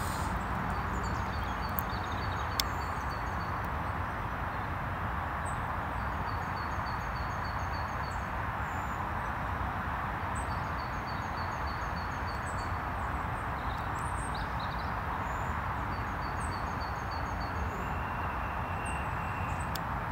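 Steady outdoor background hiss, with a small bird calling over it in several short runs of quick, evenly repeated high chirps.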